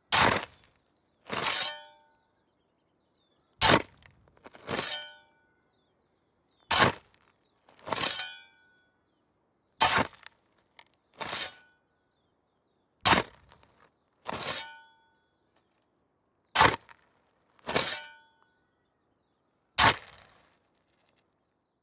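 Metal spade digging: the blade is struck into the ground and then scraped or lifted out, with a short metallic ring. This happens about every three seconds, seven times, each a sharp strike followed a second or so later by a second, slightly longer scrape.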